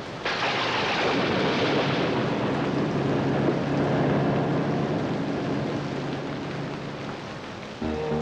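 A loud rushing rumble that starts suddenly and fades slowly over several seconds, then music begins near the end.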